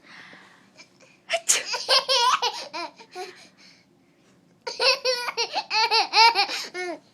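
A baby laughing in two high-pitched bouts of quick, pulsing giggles, the second starting about four and a half seconds in, set off by a sneeze. A soft breathy hiss comes at the very start.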